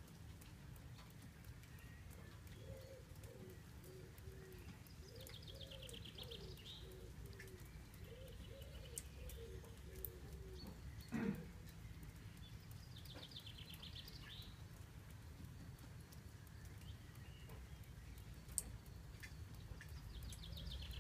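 A pigeon cooing in low repeated phrases through the first half, while a songbird sings a short high trill three times, several seconds apart. About eleven seconds in, one short sound sweeps sharply downward and is the loudest moment. A low steady rumble runs underneath.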